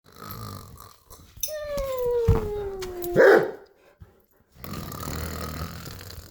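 A person fake snoring. Each out-breath is a long falling whistle-like tone ending in a short loud burst, and each in-breath is a rasping snore with a low rumble.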